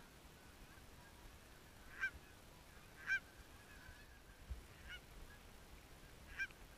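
Canada geese honking: several single honks spaced a second or more apart, the loudest about three seconds in, over a quiet background.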